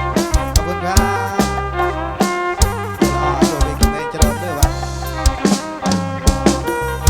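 Live kantrum band music: an instrumental passage with a melody of held notes over a steady drum beat and bass, with no singing.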